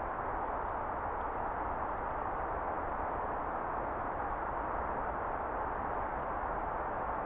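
Woodland ambience: a steady rushing background hiss, with faint, very high chirps of small birds scattered through it and a couple of light clicks.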